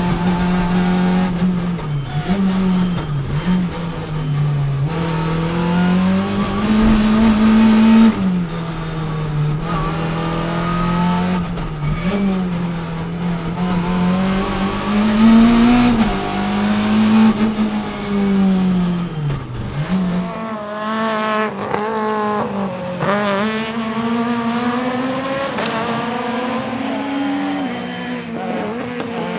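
Citroën C2 R2 Max rally car's naturally aspirated 1.6-litre four-cylinder engine at high revs, heard inside the cabin, its pitch repeatedly rising and dipping as the car is driven hard through corners. About two-thirds of the way through, the sound switches to the same car heard from trackside, its engine note rising and falling as it drives past.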